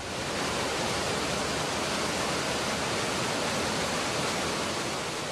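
River rapids rushing, a steady wash of white water that eases slightly near the end.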